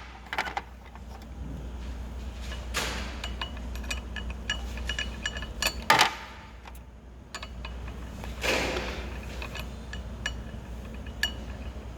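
Small metallic clicks and clinks as the crank bolt is threaded by hand onto the spin bike's crank spindle, with a few louder scrapes of metal on metal in between.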